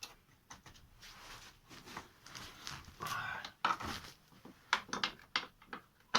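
Irregular metallic clicks and knocks of a wrench working the 13 mm steering-rack mounting nuts, several sharp ones in the second half, with heavy breathing from the effort about three seconds in.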